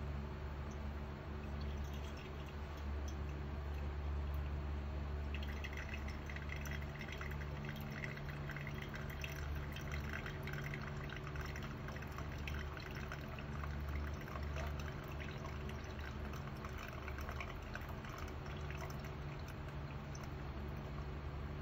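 Thin stream of hot water from a gooseneck kettle trickling onto coffee grounds in a flannel (nel drip) filter, growing louder about five seconds in. A steady low hum runs underneath.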